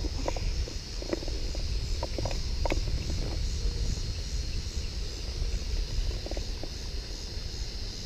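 Low rumble of wind buffeting the microphone, over a steady high insect chorus, with a few light clicks and knocks in the first three seconds and again near six seconds.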